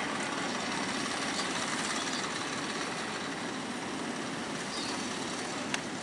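Steady wash of large ocean waves breaking on the shore, with a single sharp click near the end.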